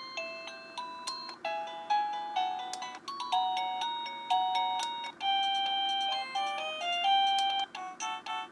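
Hotec plug-in wireless doorbell receiver playing its electronic chime tunes: short melodies of bright, beeping notes, one tune after another as the ring-select button steps through its 52 chimes.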